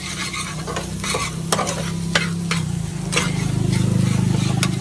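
Egg frying in a pan on a street-stall stove, a metal spatula striking and scraping the pan several times over a sizzle. A steady low hum runs underneath and swells a little about three seconds in.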